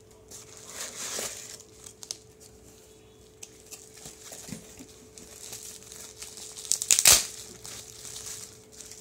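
Bubble wrap and plastic packaging crinkling and rustling in the hands as a bubble-wrapped earphone box is pulled from a cardboard shipping box, with scattered small clicks and one loud crinkle about seven seconds in.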